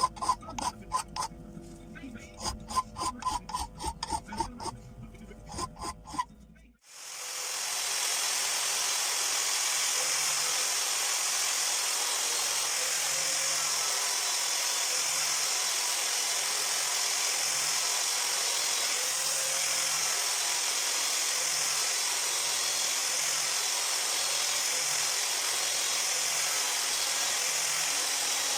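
A rapid series of short scraping strokes for the first six seconds or so. Then a power tool spins up and runs steadily with a high hiss, working on the metal of an old chisel being restored.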